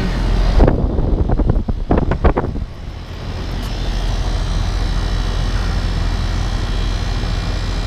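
Residential heat pump outdoor units running: a steady fan whoosh over a low compressor hum. In the first three seconds a few muffled knocks and rustles sound over it, then the running noise carries on evenly.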